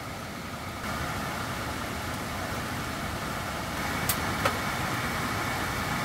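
Camping gas burner running under a pan of simmering spicy chicken stew: a steady rushing noise, with two sharp clicks about four seconds in.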